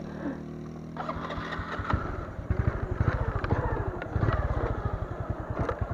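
Motorcycle engine running at low revs, a rapid even beat that starts about a second in and grows louder about two and a half seconds in.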